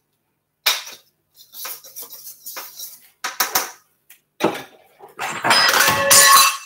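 Stainless steel mixing bowl and spatula clattering and scraping: short knocks and scrapes for the first few seconds, then a longer, louder clatter of metal with a ringing tone near the end.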